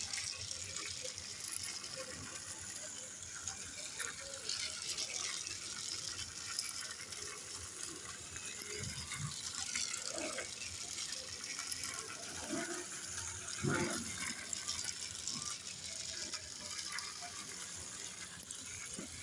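Battery-operated Thomas the Tank Engine toy train running on its plastic track: a steady whirring hiss of the small motor and gears, with a few soft knocks around the middle.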